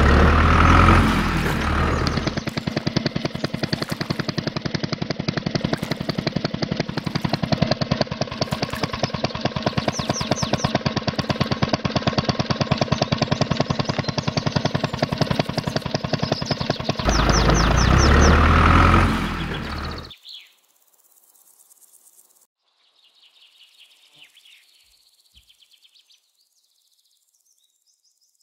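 Tractor engine chugging at a fast, even beat, heavier and deeper at the start and again just before it stops about 20 seconds in. Faint high chirping follows.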